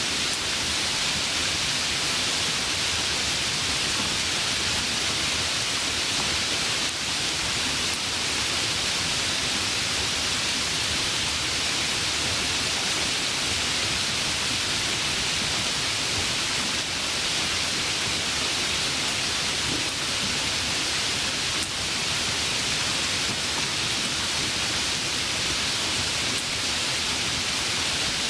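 Steady rain falling by a river: an even, unbroken hiss of rain mixed with flowing water.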